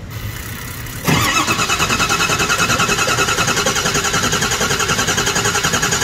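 Ford 6.0L Power Stroke V8 diesel being cranked by its starter, starting about a second in: steady, evenly pulsing cranking that never catches. It is a crank-no-start with a bad high-pressure oil pump that builds almost no oil pressure.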